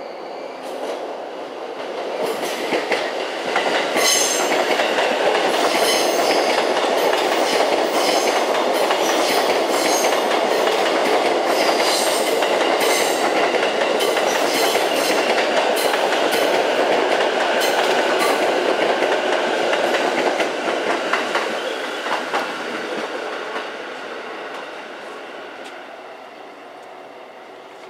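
Saikyo Line E233 series electric train passing, growing louder over the first few seconds, then running loud with a rapid clatter of wheels over rail joints, and fading away from about twenty seconds in.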